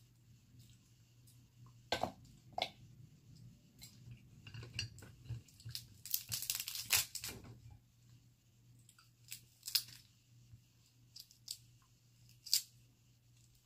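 Cooked Dungeness crab shell being cracked and pulled apart by hand: two sharp snaps about two seconds in, a stretch of crackling and tearing around six to seven seconds, then scattered single cracks near the end.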